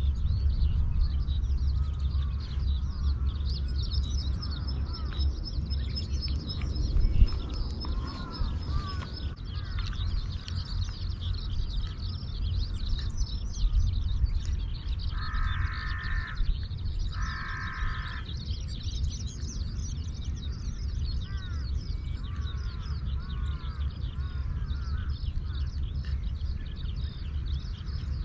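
Wild birds chirping and calling outdoors, with a steady high-pitched trill for several seconds early on and two loud caws about two seconds apart in the middle, over a constant low rumble.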